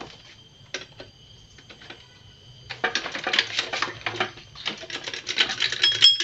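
Rapid metallic clicking and rattling as the gear shift pedal and shaft of a Honda Supra Fit engine are jiggled back and forth to work a stuck clutch cover loose. A few scattered clicks at first, then dense clatter from about three seconds in.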